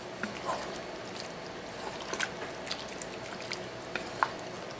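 Wooden spoon stirring a chunky cream-sauce mixture of shrimp and zucchini in a pan on the stove. Wet stirring sounds and a few light knocks of the spoon against the pan come over a steady low hiss of the simmering food.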